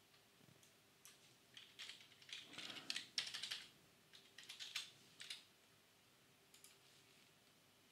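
Typing on a computer keyboard: a short, quick run of faint keystrokes about a second and a half in, lasting some four seconds, then stopping.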